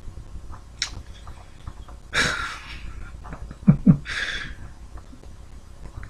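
A man breathing out heavily twice, with a short two-part stifled chuckle between the breaths.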